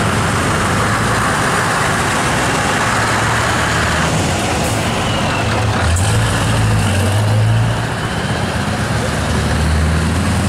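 Scania truck's V8 diesel engine running as the tractor unit pulls away, its exhaust leaving through a chrome side pipe. The engine note swells briefly about two-thirds of the way through, then eases.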